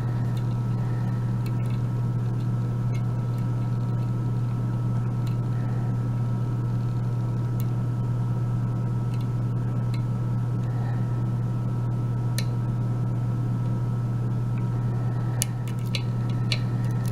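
Steady low hum throughout, with a few faint light ticks of a lock pick working the pins of a euro cylinder lock, mostly near the end.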